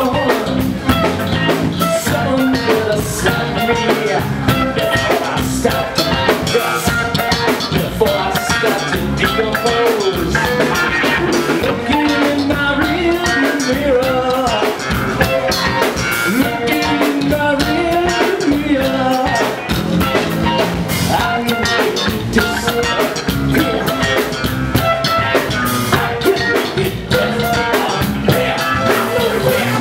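Live rock band playing through a PA: drum kit, electric bass and electric guitar, with a male singer's vocals over the top.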